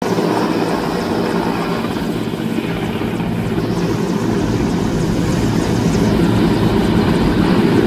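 Mil Mi-17 transport helicopter's main rotor and twin turbine engines running loud and steady as it hovers low and touches down. The sound swells a little in the second half.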